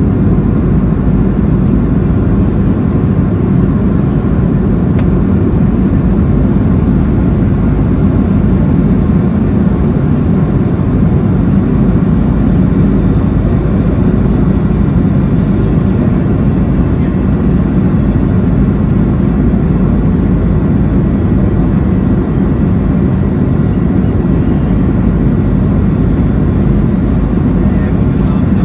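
Steady cabin noise inside an Airbus A330-200 airliner in cruise: an even low roar of airflow and its Rolls-Royce Trent 700 engines.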